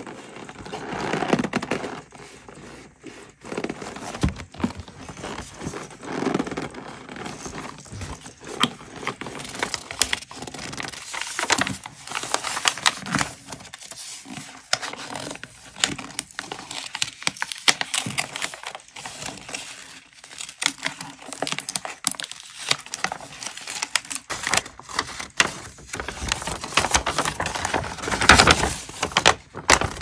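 Hands handling a leather pouch, then crinkling and rustling a sheet of wrapping paper as it is unfolded. The paper sounds come in irregular crackly patches, loudest near the end.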